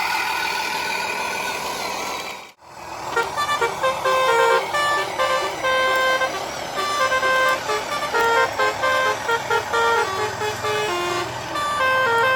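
A telolet basuri horn plays a quick melody of stepped notes, changing pitch every fraction of a second. Before it, a truck-like running noise is cut off by a brief dropout about two and a half seconds in.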